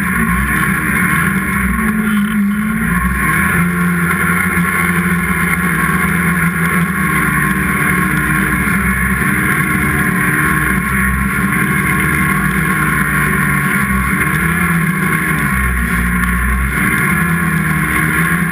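Snowmobile engine running hard while carving through deep powder, its pitch rising and dipping every couple of seconds as the throttle is worked through the turns.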